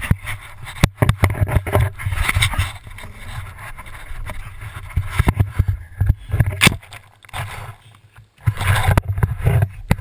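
Handling noise from a GoPro action camera on a pole, jostled about: a muffled low rumble with scattered sharp knocks and bumps. A boxer dog noses at the lens.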